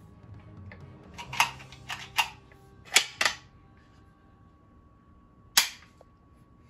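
Sharp clicks from the reassembled Stevens Model 258A bolt-action shotgun being handled: five in quick succession between about one and three and a half seconds in, then a single click near the end.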